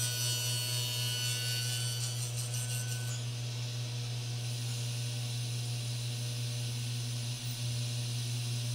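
Table saw running with a steady hum, its blade cutting through a maple board for the first two or three seconds, then spinning freely as the board is drawn back.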